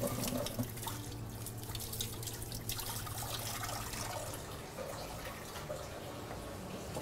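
Water from a kitchen tap running and dripping into a sink, with scattered light clicks and clatter of things handled at the sink, over a steady low hum.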